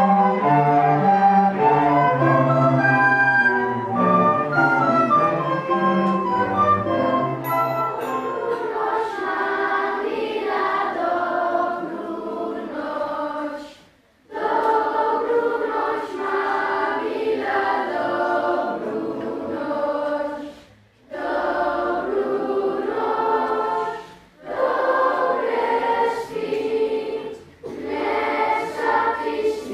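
A children's choir singing with a school orchestra of strings and woodwinds. The orchestra plays alone for the first several seconds before the choir comes in, and the singing breaks off briefly between phrases.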